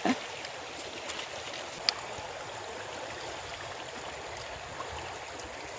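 Steady rush of river water flowing, with one small sharp click about two seconds in.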